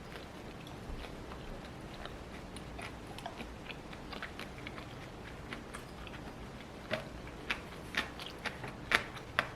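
Crunchy food being bitten and chewed close to the microphone, the crunches sharp and irregular. They get louder and more frequent in the last few seconds.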